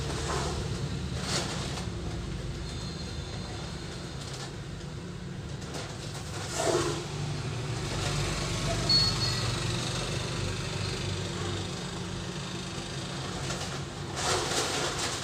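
A plastic bucket scraping up loose cement powder from a concrete floor and tipping it into a bag, a few times, over a steady low rumble.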